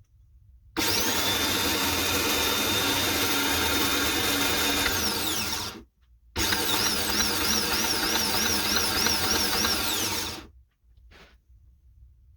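9th-generation Honda Civic starter motor being run for a test, twice: about five seconds, then about four, each a steady high whine that falls away in pitch as the motor spins down.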